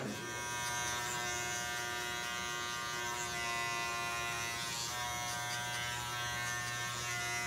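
Electric hair clipper buzzing steadily as it cuts hair.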